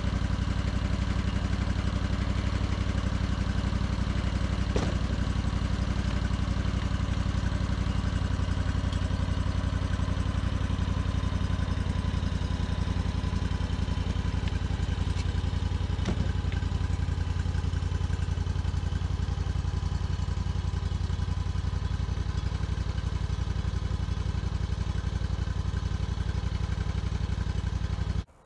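Homebuilt bandsaw mill's engine running steadily under load as the band blade saws lengthwise through a log. It cuts off abruptly at the end.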